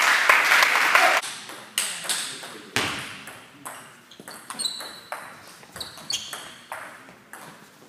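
Table tennis rally: the ball clicks sharply off the bats and the table in quick alternation, each hit ringing briefly in the hall. A loud burst of shouting and noise dies away about a second in, before the rally starts.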